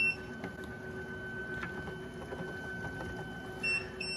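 Elegoo resin UV curing station running with a steady electrical hum. A short high beep sounds at the very start, and another near the end as its lid alarm begins to ping, the sign that the lid is not seated all the way.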